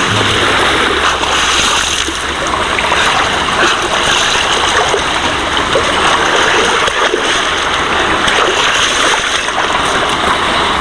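Steady splashing and sloshing of water as a person swims and wades through shallow water.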